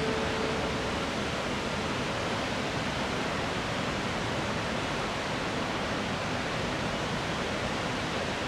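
A large waterfall, an 83 m drop in three tiers, rushing steadily with an even hiss of falling water.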